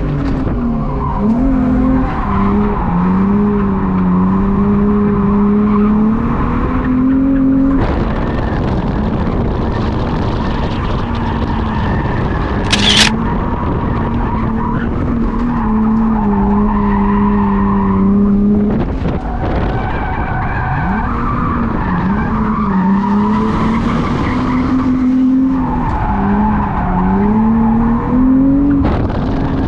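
Infiniti G35's 3.5-litre VQ V6 revving up and down through a drift run, heard from inside the cabin, with the tires squealing and skidding throughout. A short sharp crack about halfway through.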